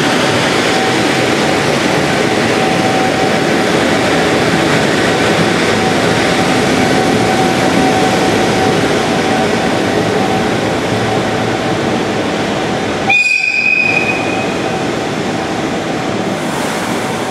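24-series sleeper coaches of the Hokutosei rolling past as the train pulls out, a steady running noise with one faint steady tone, slowly fading. About thirteen seconds in, a brief high whistle sounds for about a second and a half.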